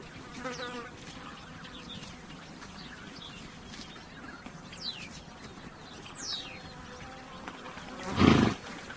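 Flies buzzing steadily around a horse, with two short falling bird whistles midway. Near the end the horse snorts once, a loud breathy burst of about half a second.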